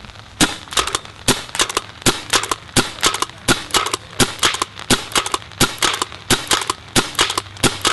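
Pump paintball marker (Sanchez Machine SM1 with CCM internals, fitted with a Deadlywind Fibur barrel) being pump-fired in a steady string, about one sharp pop every three-quarters of a second with a quick clatter of clicks between shots. This barrel is not as quiet as the Eigen barrel.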